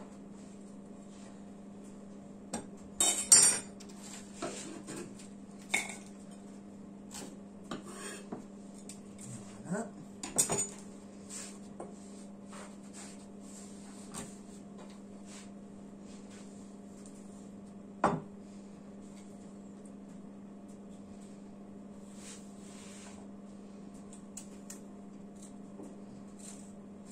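Kitchen utensils and a glass bowl clinking and knocking on a plastic cutting board: scattered clatters, the loudest a few seconds in, and a single sharp knock past the middle. A steady low hum runs underneath.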